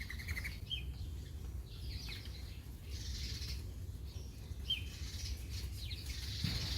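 Outdoor ambience: a few short, high bird chirps, spaced several seconds apart, over a steady low rumble.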